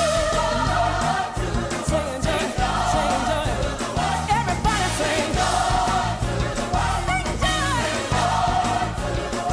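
A gospel-style choir singing a song with instrumental backing, the sung melody wavering with vibrato over a steady bass line.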